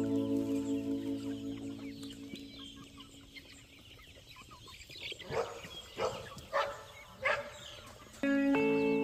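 Chickens calling: background music fades out over the first few seconds, then four loud, short calls from a chicken come about a second apart, between about five and seven and a half seconds in. Music starts again near the end.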